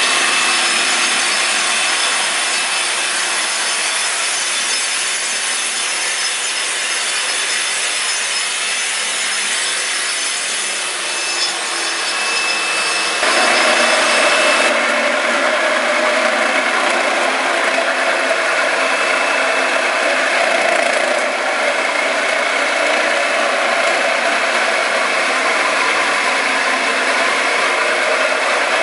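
Concrete floor grinder running on a slab: a steady, loud abrasive grinding rasp that shifts to a different tone about thirteen seconds in.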